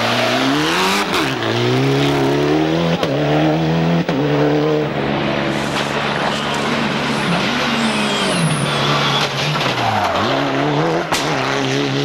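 Mitsubishi Lancer Evolution rally cars' turbocharged four-cylinder engines revving hard through corners, the pitch climbing under acceleration and dropping sharply several times as the driver lifts off and shifts down. A few sharp cracks stand out.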